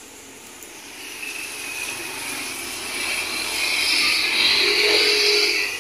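Compressed air hissing from a tyre-inflation air hose, building over the first few seconds and loudest near the end before dropping off sharply.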